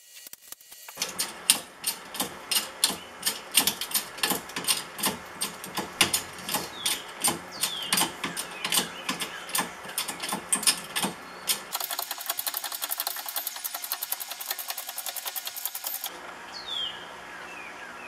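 Sharp metal clicks and knocks, a few a second, from hand tools working apart a small transformer's steel core and copper windings; after about twelve seconds the clicking turns faster and denser. A few short bird chirps sound in between.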